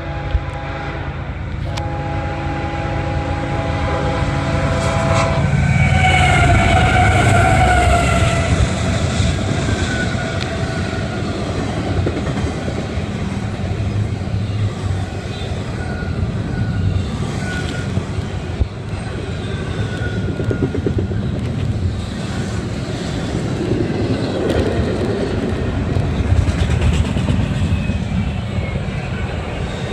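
CSX freight locomotive's multi-note air horn sounding with a short break about two seconds in, its pitch dropping as the locomotive passes. Then the steady rumble and clatter of double-stack container cars rolling by.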